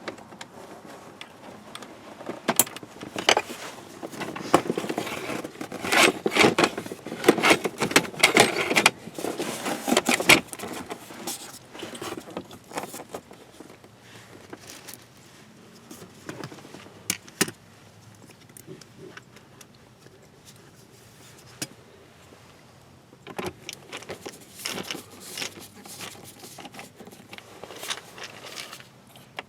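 Hand-work clatter: tools and parts rattling, clicking and scraping in bursts for the first ten seconds or so, then scattered clicks, with a further run of clicking near the end.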